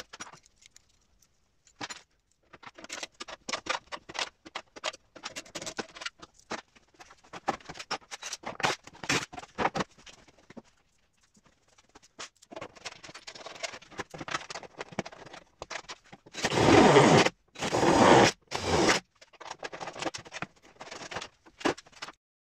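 Carbon-fibre front guard being handled and fitted against a car's body panel: a run of quick scrapes and clicks as it is positioned. Three louder scrapes come near the end.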